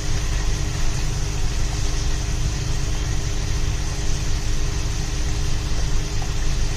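Prawns frying in coconut oil in a nonstick pan, turned over with a plastic slotted spatula, over a steady low hum and rumble.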